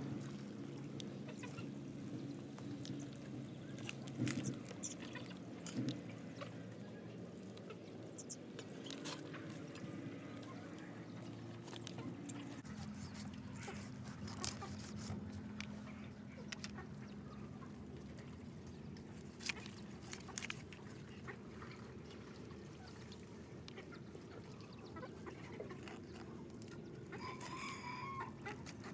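Chickens clucking in the background, with a rooster crowing once near the end, over a steady low hum and scattered small clicks.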